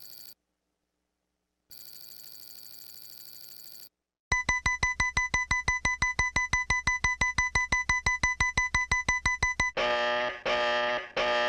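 A string of separate electronic sound effects. A faint electronic telephone-style ring sounds twice, briefly, with gaps of silence. Then a loud rapid beeping, about seven beeps a second, runs for about five seconds, and near the end gives way to a pulsing electronic ringtone-like tone repeating a little under twice a second.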